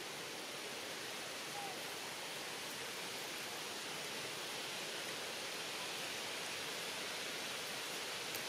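Steady, even hiss of outdoor ambience, with a faint short chirp about a second and a half in.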